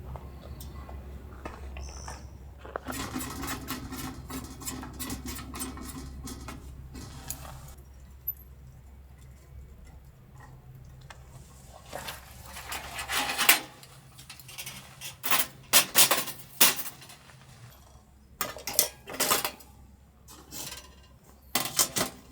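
Small hard objects being handled: a scatter of sharp clinks and knocks in the second half, over a low steady hum in the first half.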